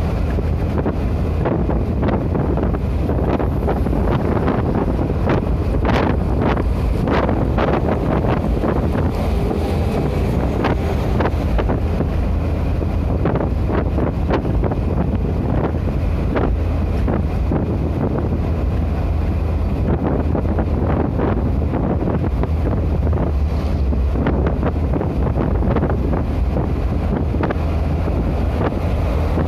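Steady low rumble of road and engine noise inside a vehicle's cab moving at highway speed, with frequent small rattles and knocks from the cab.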